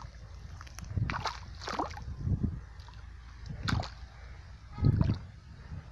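Feet squelching and sloshing through shallow irrigation water and soft wet mud, about five separate splashy steps, over a low steady rumble.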